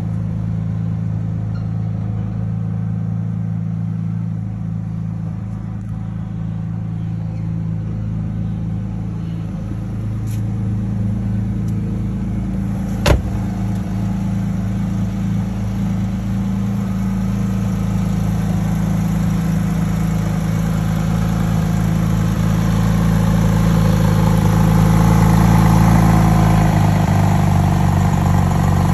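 2007 Porsche 911 GT3's 3.6-litre flat-six idling steadily, still warming up after a cold start. It grows louder toward the end as the rear-mounted engine comes closer. A single sharp click sounds about thirteen seconds in.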